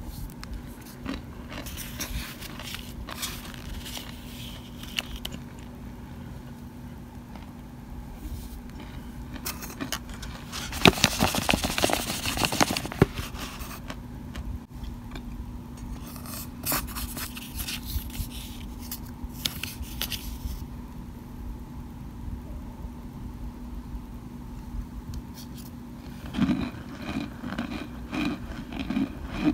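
Plastic spoon scraping and crushing baked cornstarch powder and chunks against a glass bowl, giving bouts of dry, crunchy crackling, the loudest in a dense burst near the middle.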